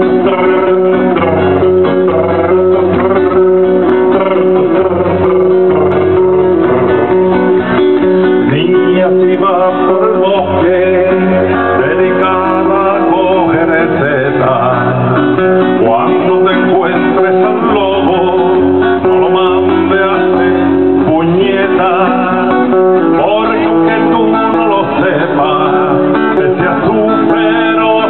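Acoustic guitar played live, a continuous instrumental passage of a song with a dance beat.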